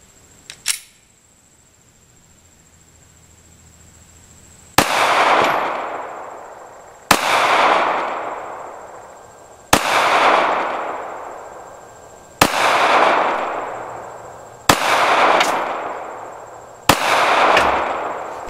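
Six shots from a Glock 43 9mm pistol, fired one at a time about two and a half seconds apart. Each is a sharp crack followed by a long fading echo.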